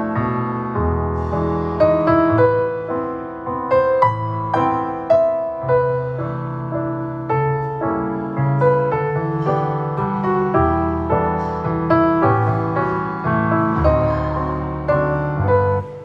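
Gentle piano music, a steady flow of notes over sustained low chords.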